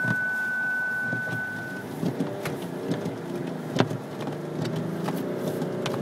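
A steady high beep that cuts off about two seconds in, then the 2011 BMW X5's straight-six diesel engine running with a wavering pitch as the SUV is driven through deep snow, with a few sharp knocks.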